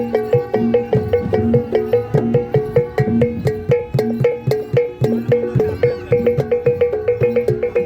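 Javanese gamelan playing a fast, driving piece: metallophones struck in quick, evenly spaced repeated notes over drum strokes.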